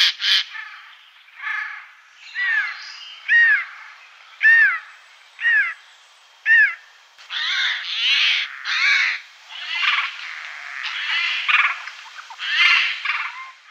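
Eurasian jay calling: a harsh call at the start, then a series of short arched call notes about once a second, then a run of longer harsh, rasping screeches in the second half, the jay's typical alarm call.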